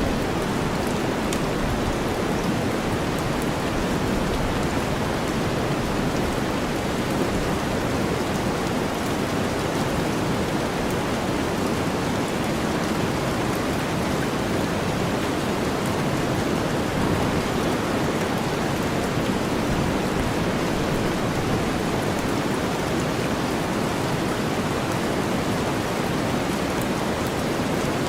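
Steady rain mixed with deep white noise: an even, unbroken hiss weighted toward the low end, with faint patter of raindrops on top.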